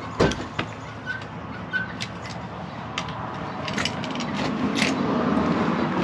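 Sharp clicks and taps of pliers gripping and pulling small finish nails from an old wooden window sash, the loudest a knock just after the start. A low rumble builds up through the second half.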